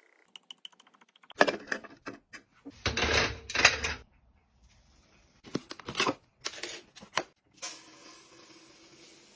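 Small hard objects being handled and set down: a quick run of light clicks, then loud clattering knocks and rattles, a few more knocks, and a faint steady hiss near the end.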